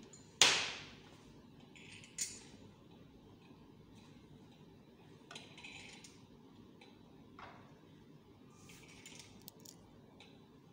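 Metal slotted weights clinking: one sharp ringing clink about half a second in, a smaller one near two seconds, then a few light clicks and knocks as weights are handled and hung on a weight hanger.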